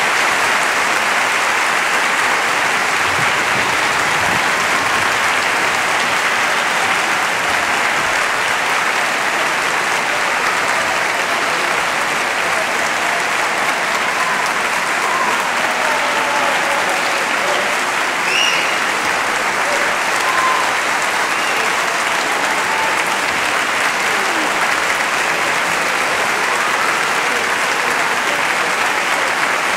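A large concert-hall audience applauding steadily after an orchestral performance, with a few faint calls over the clapping.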